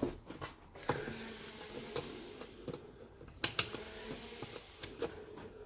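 Small plastic clicks and knocks as a handheld digital multimeter and its test leads are picked up and set down on the bench. The taps are scattered, with two sharper clicks about three and a half seconds in.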